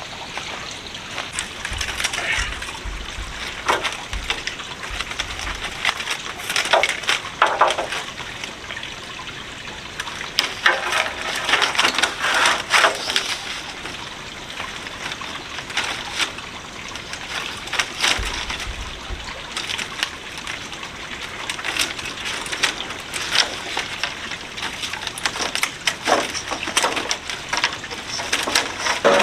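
Split bamboo strips clacking and scraping irregularly as they are woven into a bamboo wall panel.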